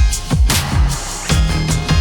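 Electronic background music with a driving beat: punchy kick drums and a sustained synth bass line.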